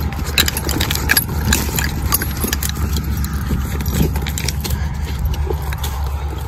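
Footsteps crunching through dry corn stubble, with irregular sharp crackles, over a steady low wind rumble on the microphone.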